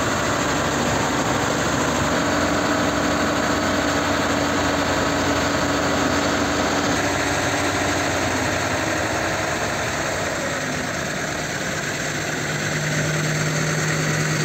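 Engine of a truck-mounted hydraulic crane running steadily while the crane lowers a truck cab, a continuous hum whose steady tone drops lower near the end.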